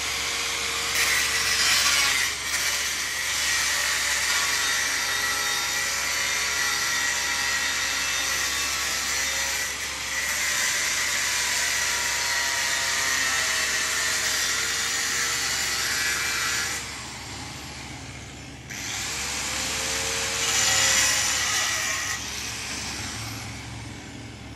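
Handheld angle grinder with a cutting disc slicing through steel angle iron: a loud, steady grinding whine whose pitch wavers as the disc is loaded. It eases off briefly about two-thirds of the way through, cuts again, then dies away near the end.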